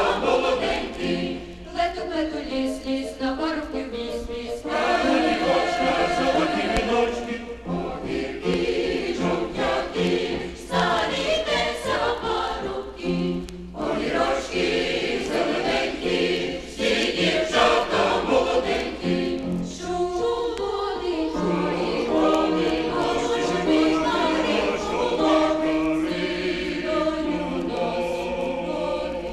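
A choir singing a Ukrainian choral song in full chords, phrases swelling and breaking off every few seconds.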